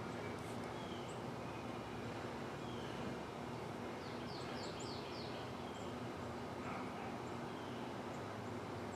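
Quiet outdoor ambience: a steady low hum under small birds chirping, with a quick run of four descending bird notes about four seconds in.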